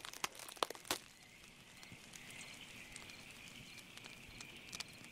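Faint crickets chirping steadily, with a few soft clicks in the first second.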